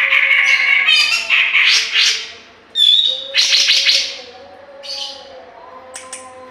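Grey-cheeked bulbul (cucak jenggot) calling in loud, harsh chattering bursts through the first two seconds and again about three and a half seconds in, with a short clear whistle just before the second burst and fainter calls near the end.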